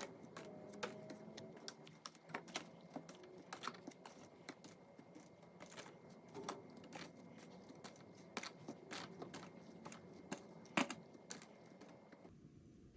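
Irregular light clicks and clacks of containers being set down and arranged on refrigerator shelves, with a few sharper knocks among them.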